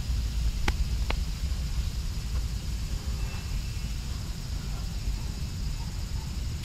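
Outdoor ambience: a steady low rumble with a steady high hiss above it, and two sharp clicks about a second in.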